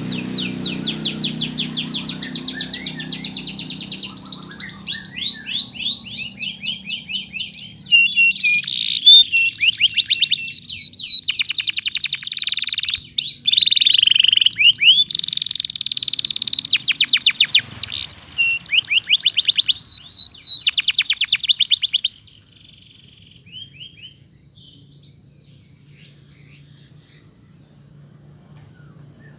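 Domestic canary singing fast, rolling trills and rapid runs of repeated sweeping notes. About three quarters of the way through the song stops suddenly, leaving only faint chirps and a low hum.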